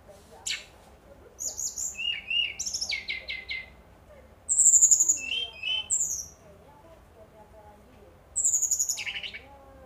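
Brown-chested jungle flycatcher singing: a short sharp note, then three phrases of quick, high whistled notes, several falling in pitch, with pauses between; the middle phrase is the loudest.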